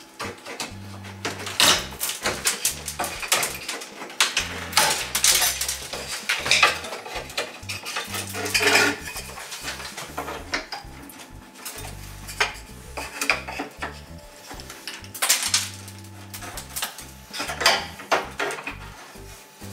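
Steel flat bar prying a painted wooden window apron away from the wall, braced on a wood block: irregular metallic clinks, taps and scrapes.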